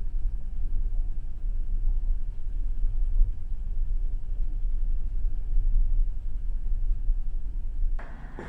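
Low, steady rumble of a car ferry under way, gusting slightly in level; it cuts off abruptly near the end.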